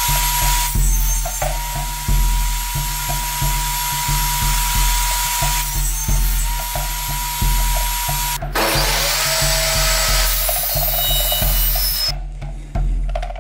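Table saw running and ripping a board, a steady blade whine over the hiss of the cut that dips briefly in pitch as the blade takes load. The whine breaks off about two-thirds of the way through, and a different sawing sound follows.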